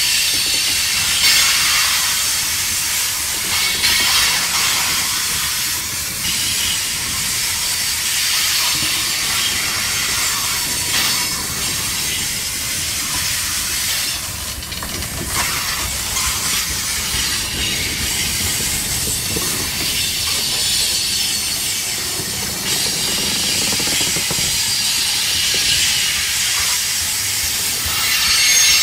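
Covered grain hopper cars of a long freight train rolling past close by: a steady hiss and rumble of steel wheels on the rails, with a few short knocks from the wheels.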